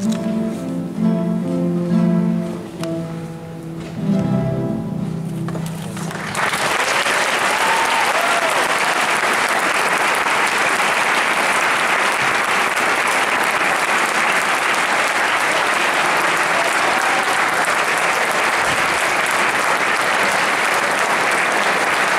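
A classical guitar ensemble plays the last bars of a piece and ends on a sustained chord. About six seconds in, an audience breaks into steady applause, with a few cheers over it.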